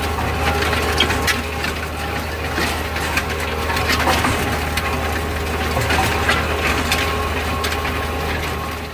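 Tractor engine running steadily under a dense, continuous crackling and snapping of tall cereal rye stalks being crushed and laid down by the planter.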